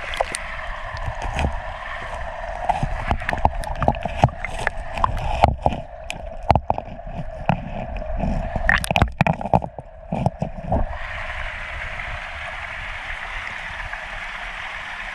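Creek water running steadily, with a stretch of sharp knocks and clatter of stones as a large agate is worked out of the rocks. After about eleven seconds the knocking stops and only the running water is left.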